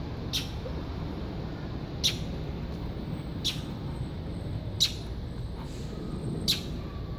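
A bird giving short, sharp, high calls, five of them about one and a half seconds apart.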